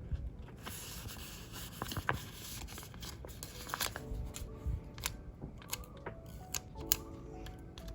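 Paper sticker sheets and planner pages being handled: a short rustle about half a second in, then small clicks and taps. Soft background music joins about halfway through.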